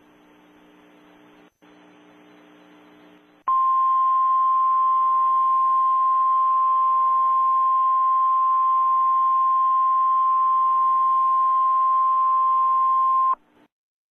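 Emergency alert attention signal: one steady high tone just above 1 kHz, held for about ten seconds, then cut off abruptly. It is the single-tone kind of alert alarm that heralds a warning message. Before it there are about three seconds of faint broadcast hiss and hum.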